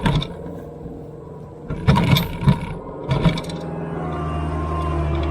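Skid loader engine running, with a sharp knock at the start and a cluster of loud knocks and scrapes about two to three seconds in; the engine note gets louder and steadier near the end.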